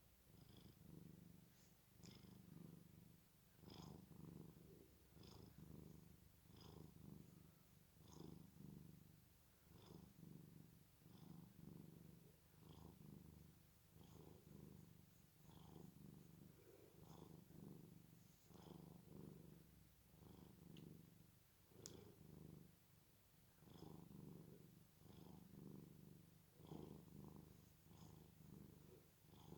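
Cat snoring: a quiet rumbling breath that swells and fades about every second and a half.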